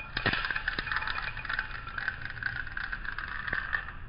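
Glass marbles rolling on a polished stone floor: a steady grainy rolling rattle, with several sharp clacks of impacts, the loudest just after the start. The rolling dies away near the end.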